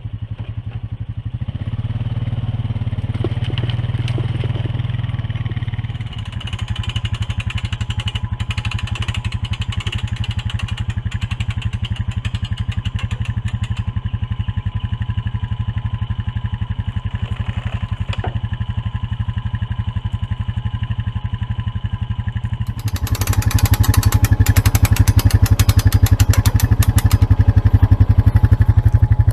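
Kubota KX-018 mini excavator's diesel engine running under work load. It rises briefly in the first few seconds, then runs steadily. About three-quarters of the way through it grows louder, joined by a rattling clatter.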